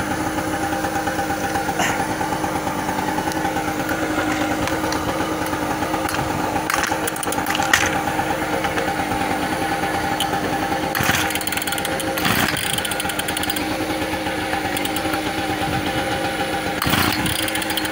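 Two-stroke chainsaw, fuelled with diesel and with its choke closed, being pull-started several times without catching: a few short, sharp sounds from the pulls. Underneath, a small engine runs steadily throughout.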